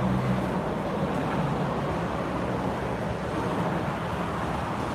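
Steady street traffic noise, with a low vehicle engine hum that fades out about halfway through.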